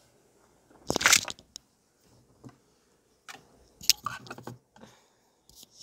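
Handling noise close to the microphone: a loud crunchy rustle about a second in, then scattered clicks and rustles, as the camera setup is moved around.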